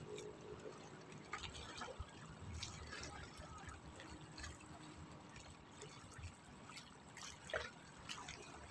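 Small waves lapping against shoreline rocks: faint, irregular splashes and drips of sea water.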